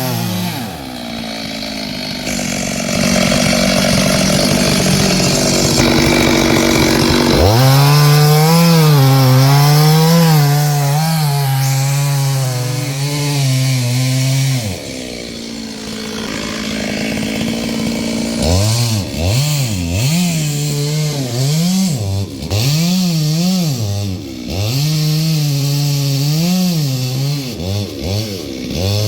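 Two-stroke chainsaw running: held at high speed for about seven seconds, it drops away, then is revved up and down repeatedly in the second half.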